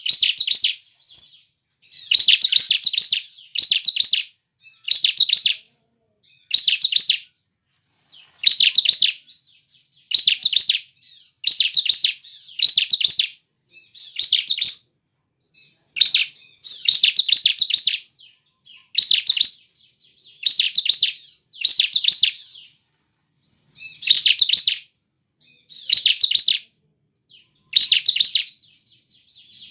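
Bar-winged prinia (ciblek) singing: short bursts of rapid, high chirping notes, repeated every second or so with brief pauses between phrases.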